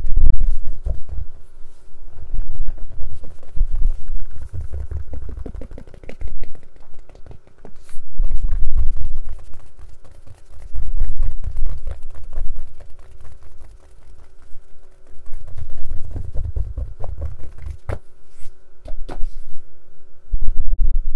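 A case being tapped, scratched and handled close to the microphone: clusters of quick clicks and taps with heavy low thumps, and a couple of sharper knocks near the end.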